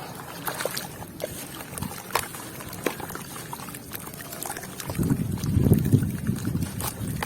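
Wet sand and red dirt with small white stones crumbling into water: scattered sharp clicks of stones. About five seconds in comes a louder, low watery pour or slosh lasting about two seconds.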